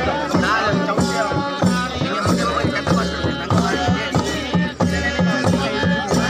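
Traditional Indian percussion music: drums beat a quick, even rhythm under a melody that bends up and down in pitch.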